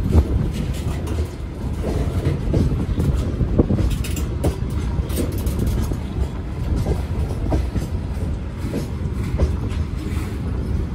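Freight train of open-top gondola wagons rolling past, its wheels on the rails giving a steady low rumble with irregular clanks and clicks.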